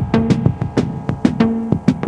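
Background music: an electronic track with a steady drum beat and short repeated synth notes.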